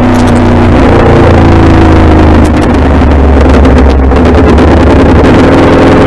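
Aprilia Tuono V4 motorcycle's V4 engine running while being ridden at road speed, heard from the rider's helmet over heavy wind rush on the microphone. The engine note dips briefly about two and a half seconds in, then picks up again.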